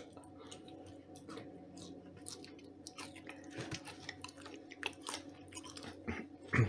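A person chewing a mouthful of bread topped with salted, boiled pork fat (salo), with faint, irregular mouth clicks.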